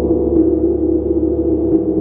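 Gong played continuously, a dense, sustained wash of many overlapping low tones, loudest in the low-middle range, with soft mallet strokes about half a second in and near the end feeding the drone.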